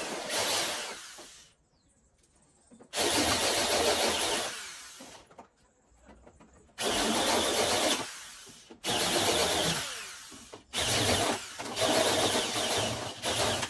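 Handheld electric drill with a spot-weld bit cutting through the top layer of a car's sheet-metal body panel to open up the spot-weld holes. It runs in five bursts of about two seconds each, and the drill winds down at the end of each burst.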